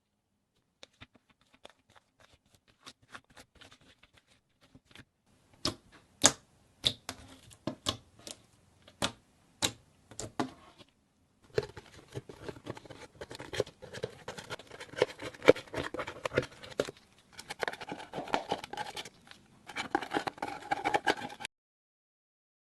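Slime being played with, making sticky clicks and pops. Scattered soft clicks at first, then a string of louder sharp pops about a second apart, then a dense run of crackling squelches that cuts off suddenly near the end.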